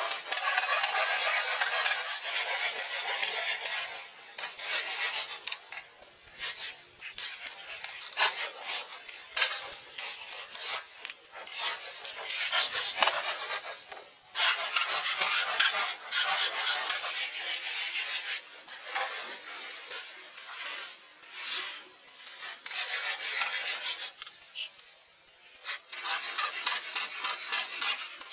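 Rasping and scraping of a hand tool worked against a hard surface, in stretches of one to a few seconds with short breaks between them.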